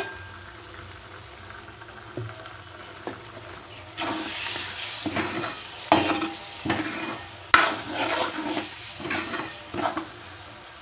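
Steel spoon stirring and scraping a thick onion-tomato masala in a metal kadhai, over a low frying sizzle. From about four seconds in comes a run of irregular scraping strokes against the pan, two of them sharp knocks.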